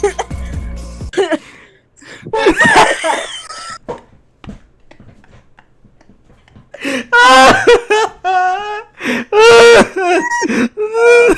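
People laughing hard in high-pitched, breaking bursts: a short bout about two seconds in, then a longer, louder one from about seven seconds in.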